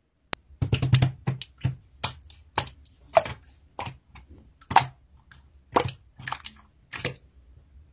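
Hands squeezing and folding a clear slime, making irregular sharp wet pops and clicks, thickest in the first couple of seconds.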